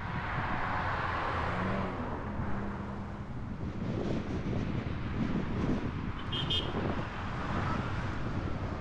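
Car driving in city traffic: steady road and engine noise, with a short high chirp about six and a half seconds in.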